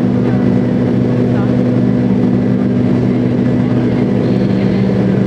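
Airliner jet engines heard from inside the cabin during the climb after takeoff: a steady, loud drone with a low hum and a few held tones.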